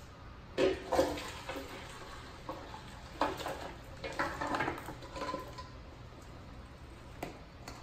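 Curried goat and gravy poured from a metal pot into a speckled enamel roasting pan: the pot knocks against the pan's rim, and the meat and liquid slide and splash in. The loudest knocks come about a second in.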